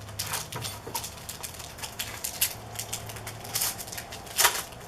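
Sealed trading-card packs being torn open and the cards handled: a run of irregular crinkles, rustles and small clicks. The sharpest crackle comes about four and a half seconds in.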